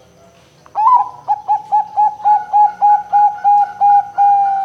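Zebra dove (perkutut) cooing: starting about a second in, a quick run of about a dozen short notes at an even pitch, about three a second, ending on one longer note that falls slightly.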